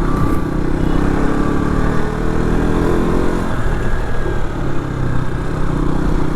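KTM RC 200's single-cylinder engine running as the bike is ridden, the engine pitch rising to a peak about three seconds in and then easing off.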